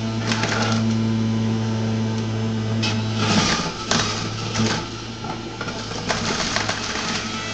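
Breville centrifugal juicer running with a steady motor hum while celery stalks are pushed down the feed chute. The spinning blade shreds them in bursts of crunching and grinding, and the motor tone sags under the load through the middle of the stretch.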